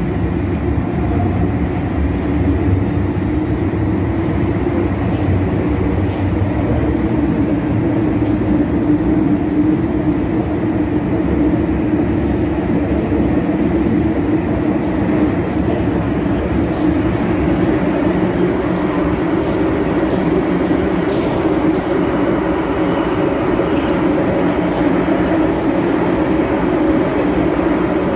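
MTR M-Train (Metro-Cammell electric multiple unit) running, a steady rumble and hum of traction equipment and wheels heard from inside the carriage.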